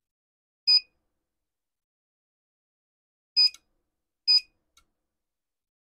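Buzzer on a Suntem dental chair control board giving three short high beeps, the last two close together, with a longer beep starting right at the end. The beeps answer its foot-switch input pins being bridged: the repaired board is responding to control signals.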